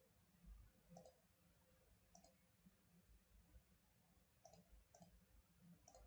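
Near silence, broken by a handful of faint, separate computer mouse clicks.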